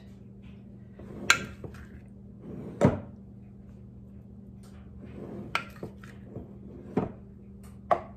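A small measuring cup knocking and clinking against a glass measuring jug and a metal muffin tin as egg batter is scooped and poured: about five sharp knocks spread over several seconds.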